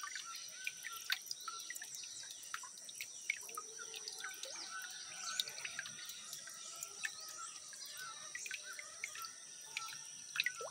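Faint water dripping from a wet clump of aquatic plant, with birds chirping in the background.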